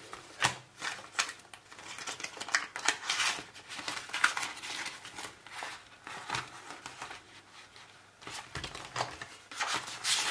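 Clear plastic binder pockets and paper banknotes rustling and crinkling under the hands as notes are slipped in and the pockets are turned, in short irregular bursts.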